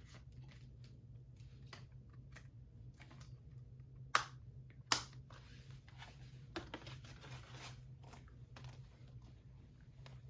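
Plastic Blu-ray case and discs being handled: scattered small clicks and rustles, with two sharper clicks about four and five seconds in, over a steady low hum.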